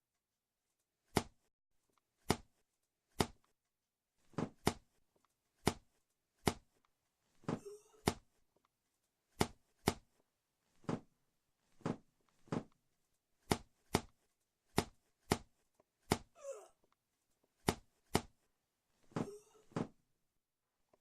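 Home-recorded Foley impact sounds: an uneven run of sharp thuds and smacks, roughly one a second and often in quick pairs, with a few longer, rougher sounds among them.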